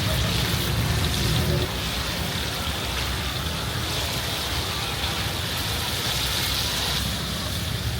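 Busy street-market ambience: a steady hiss with a low rumble that eases about two seconds in, and faint background voices.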